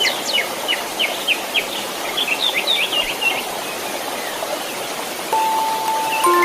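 Steady white-noise hiss, with a bird singing a quick series of short, mostly falling chirps through the first half. A held chime-like tone comes in near the end.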